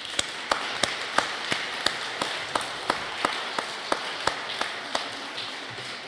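Audience applauding, with one clapper near the microphone standing out at about three claps a second. The applause fades away near the end.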